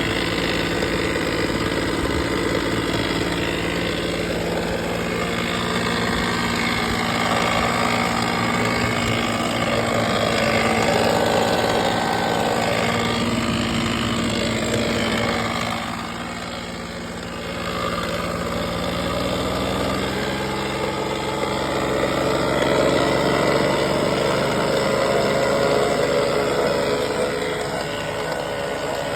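Honda BF30 three-cylinder four-stroke outboard motor running at low speed, recorded for a strange noise that it makes. The level dips briefly about halfway through, and the pitch drifts up a little near the end.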